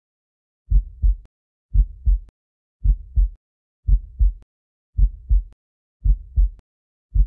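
Heartbeat: a slow, steady lub-dub of paired low thumps, about one beat a second, starting a little under a second in.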